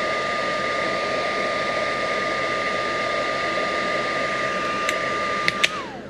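Cordless heat gun blowing steadily with a high motor whine as it shrinks heat-shrink tubing onto a crimped cable lug. Near the end there are a couple of clicks, then it switches off and the whine falls away as the fan winds down.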